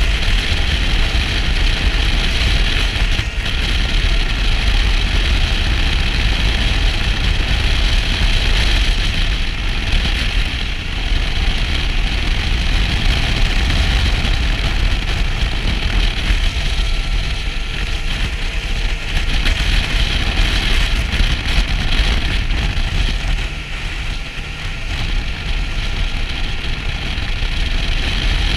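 Motorcycle riding at road speed: steady wind rush over the camera microphone with low buffeting rumble, the engine and tyre noise underneath, easing slightly for a moment near the end.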